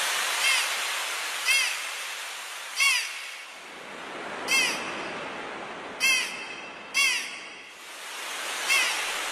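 Seagulls crying over the wash of waves: the surf swells and ebbs, and about seven short, arching gull calls come at uneven intervals.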